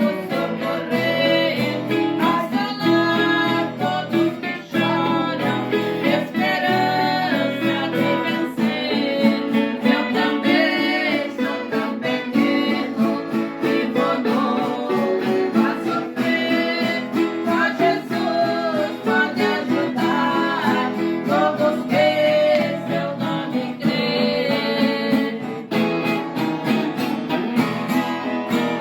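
Singing of a Christian praise song, accompanied by a strummed acoustic guitar.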